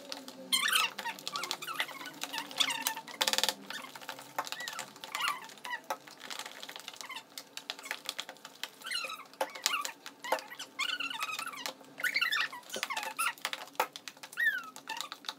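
Homemade glue-and-shaving-foam slime being stirred with spoons in plastic tubs: irregular wet squeaks and squelches, with frequent clicks of spoons against the tubs.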